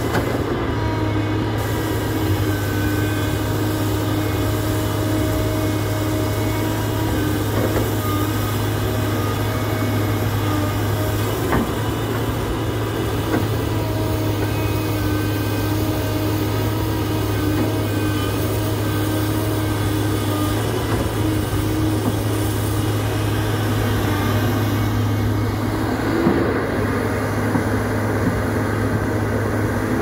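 Kobelco SK250LC crawler excavator's diesel engine running steadily under load as the boom, arm and bucket dig and the house swings, a constant low hum with whining tones over it. A couple of short knocks come about a third of the way in and again near the end.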